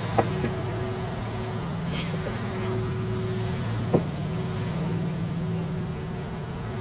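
Tractor engine running steadily at a low, even hum while powering the homemade sawmill through its PTO. Two short sharp knocks stand out, one just after the start and a louder one about four seconds in.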